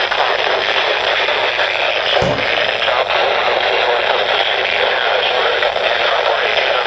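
Steady static hiss from a Midland WR-100 weather radio's speaker, with no voice on the channel. A brief low thump comes about two seconds in.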